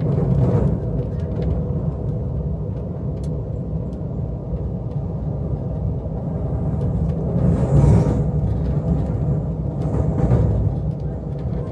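Amtrak California Zephyr passenger train running, a steady low rumble of wheels on rail. Short swells of rushing noise come about eight and ten seconds in.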